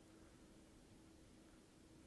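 Near silence: faint background hiss with a faint steady hum.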